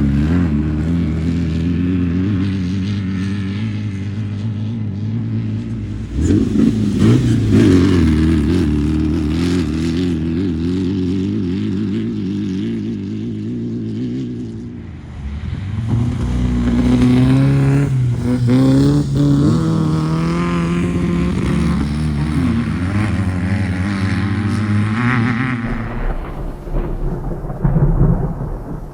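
Engines of off-road race vehicles running hard as they go by, louder about six seconds in, then rising in pitch twice in a row a little past halfway as one accelerates; the engine sound thins near the end.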